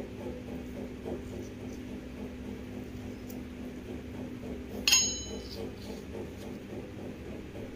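A metal spoon clinks once against a stainless-steel mixer jar, a short ringing clink about five seconds in, over a steady low hum.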